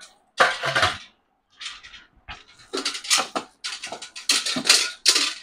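Brass chains and fittings of a chain-hung brass pot stand clinking and jangling as they are handled and set in place, in a series of short, irregular rattles.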